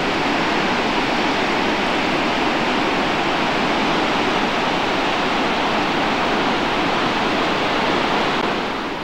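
Steady rushing of a tall waterfall falling down a cliff face.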